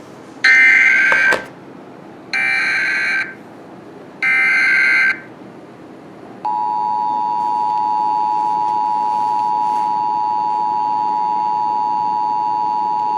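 Emergency Alert System broadcast tones: three short SAME digital header warbles, each under a second long and about a second apart, followed about halfway through by the steady two-tone EAS attention signal. Together they open a National Weather Service flash flood warning.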